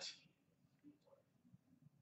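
Near silence: room tone, with a few faint soft ticks of trading cards being handled.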